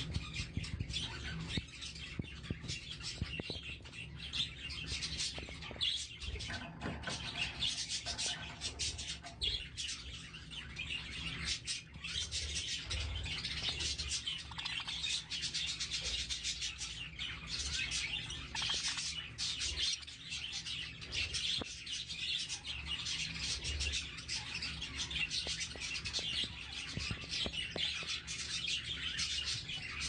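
Budgerigars chattering and warbling: a dense, continuous flurry of quick, high chirps, over a steady low hum.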